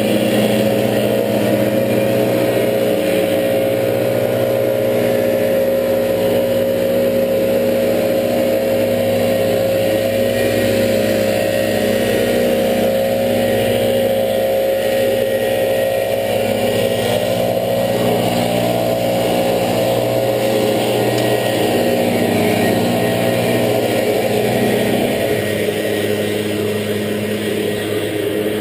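Gas-powered backpack leaf blowers running steadily at high throttle, a loud engine drone with the rush of blown air. Their engine note changes about 25 seconds in.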